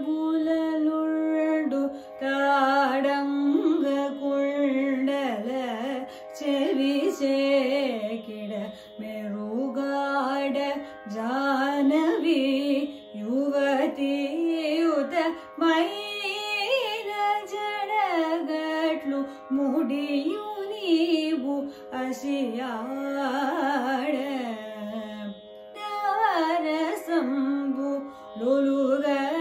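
A woman singing Carnatic vocal music, phrases full of fast oscillating pitch ornaments (gamakas) with short breaks between them, over a steady unchanging drone.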